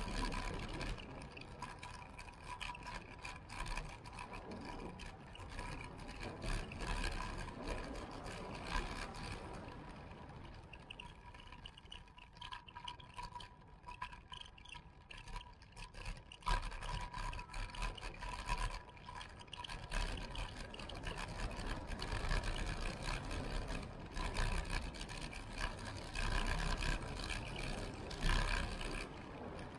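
Wind noise on the microphone and tyre rumble from a road bike coasting downhill on rough, cracked asphalt, with frequent small knocks and rattles from bumps in the road. It eases off for a few seconds midway, then grows again.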